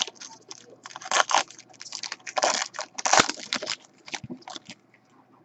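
Foil trading-card pack wrapper crinkling and tearing open, with cards being handled, in irregular short rustles that die away near the end.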